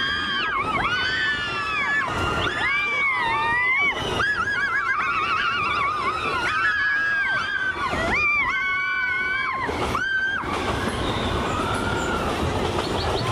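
Several passengers giving long, high, wavering shouts and whoops together, over the low rumble of the train running through a tunnel.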